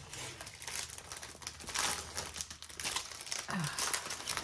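Clear plastic wrapping on a rolled diamond painting canvas crinkling as it is handled, in irregular crackles.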